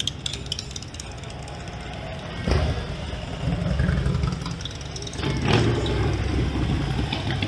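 Motor vehicle engines rumbling in traffic, growing louder twice, about two and a half and five and a half seconds in.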